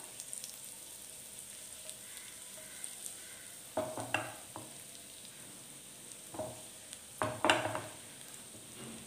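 Whole cumin seeds sizzling in hot mustard oil in a non-stick frying pan, a faint steady fizz of seeds tempering in the oil. A few short clatters break in around four, six and a half and seven and a half seconds in, the last the loudest.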